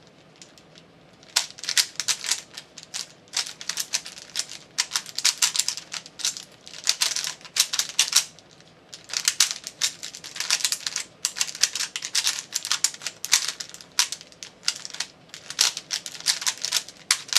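A Rubik's brand 3x3 cube being turned fast during a speedsolve. Its plastic layers click and clack in quick irregular runs with short pauses. The turning starts about a second and a half in.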